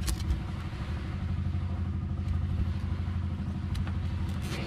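An engine running steadily with a low, even drone. Near the end comes a short ratcheting zip of a nylon cable tie being pulled tight around wires.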